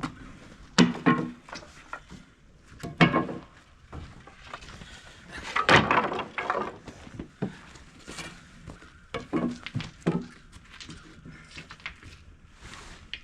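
Irregular knocks, thuds and scrapes of heavy rough-sawn pine slabs and offcuts being handled and stacked by hand, with the loudest knocks near the start, about three seconds in and around six seconds.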